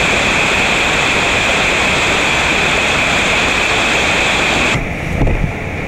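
Steady rush of water from a small river waterfall. Near the end it cuts abruptly to a quieter, lower rush with some low rumbling.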